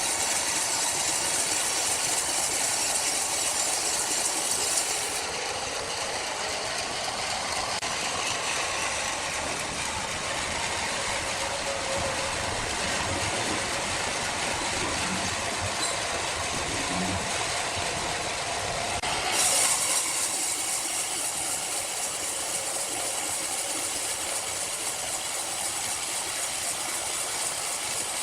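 Sawmill machinery running steadily, a continuous mechanical noise with hiss. The sound changes abruptly about 5 seconds in and again about 19 seconds in.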